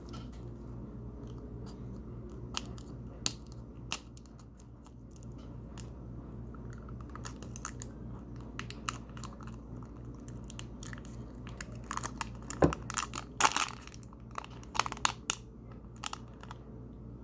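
Plastic toy packaging being handled and opened by hand: scattered sharp crinkles and clicks, sparse at first and coming thick and fast about twelve seconds in, over a steady low electrical hum.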